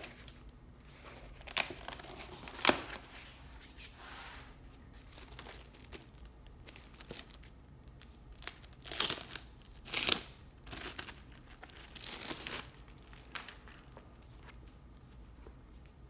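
A cardboard mailer box being torn open, then a clear plastic bag crinkling as a book is pulled from it. Two sharp rips come early, the second the loudest, and rustling bursts follow from about 9 to 13 seconds in.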